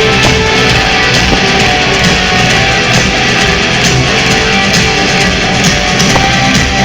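Rock band playing live: electric guitar over bass and drums, loud and steady, with the echo of a large arena.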